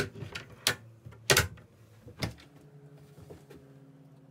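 Wooden cabin locker door being handled: four sharp knocks and clicks in the first two and a half seconds, the third the loudest, over a steady low hum.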